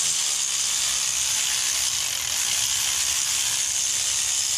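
Power ratchet running steadily with a high-pitched whir, driving in the accessory bracket bolts.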